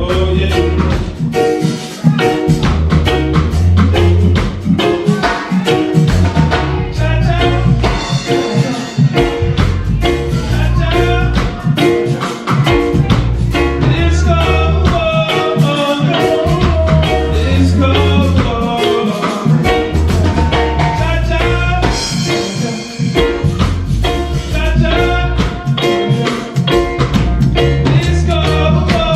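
Live roots reggae band playing an instrumental passage: heavy repeating bass line, drum kit keeping a steady beat, and guitar and keyboard chords.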